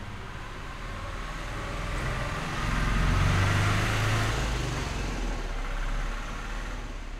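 A motor vehicle passes close by. Its engine and tyre noise grow louder to a peak about three to four seconds in, then fade away.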